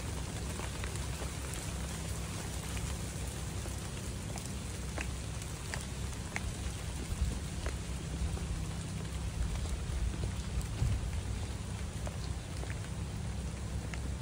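Heavy rain falling steadily on a stone trail and the surrounding foliage: an even hiss with separate drops ticking sharply now and then, over a steady low rumble.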